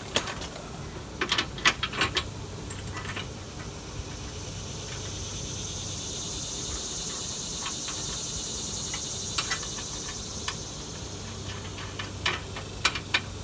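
Light metal clinks and clicks of steel nuts and hitch hardware being handled as nuts are started by hand on the frame bolts for a front receiver hitch. The clinks come in a cluster near the start and again near the end. A steady high-pitched buzz rises and fades in the middle.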